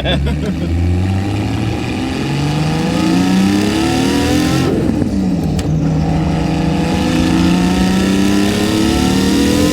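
Nissan Skyline R32 GT-R's HKS 2.8-litre stroker RB26 straight-six with a T04Z turbo, accelerating hard on high boost. The revs climb steadily and drop sharply about halfway through, as at an upshift, then climb again through the next gear.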